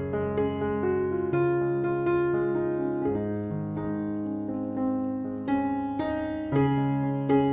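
Background piano music: slow, sustained chords changing every second or two.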